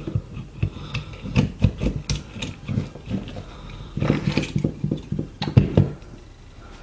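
Irregular small clicks, taps and rubbing of fingers working a DCC chip's socket pins into a model locomotive, with two busier bursts of clicking about four and five and a half seconds in.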